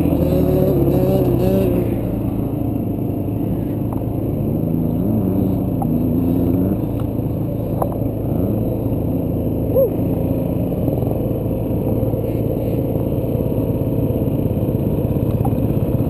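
Dirt bike engine running while being ridden, the engine note rising and falling with the throttle over the first several seconds, then holding steadier.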